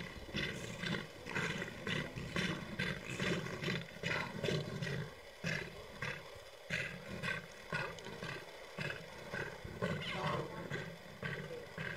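A lion and spotted hyenas over a kill: a low, steady growl under a rapid run of short repeated cries, about three a second.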